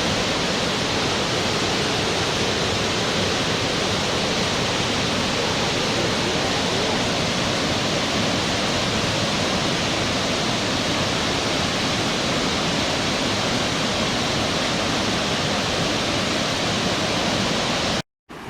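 Steady, even rush of falling water, like a waterfall, that does not change. It cuts off abruptly near the end.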